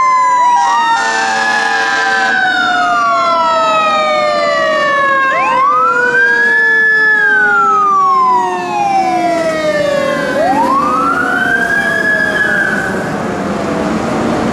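Fire engine siren wailing, three times rising quickly in pitch and then falling slowly as it winds down, with a short blast of the engine's horn about a second in.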